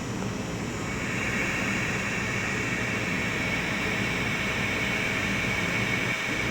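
AirVac DRS25 solder rework station running its test profile: a steady rush of air from its hot-air heaters, with a hiss that comes up about a second in and holds.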